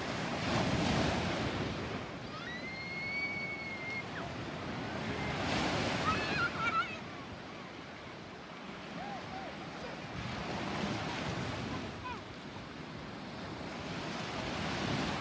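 Small surf washing onto a sand beach, swelling about every five seconds, with wind on the microphone. A few brief high-pitched calls rise over it in the first half.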